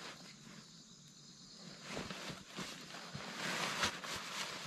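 Rustling of a fabric bag being pulled and handled out of a backpack. It starts about two seconds in and is loudest near the end.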